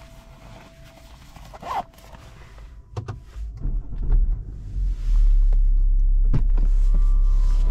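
Clicks and a brief rising rustle of handling in a BMW 530d's cabin, then the car's diesel engine comes in about three and a half seconds in and settles by about five seconds into a loud, steady low idle.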